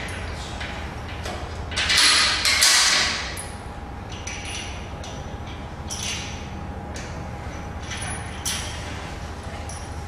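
Metal clicks, clinks and short scrapes of a steel bolt and frame parts being handled and fitted by hand on a steel gym-machine frame, with a louder scraping stretch about two to three seconds in, over a steady background hum.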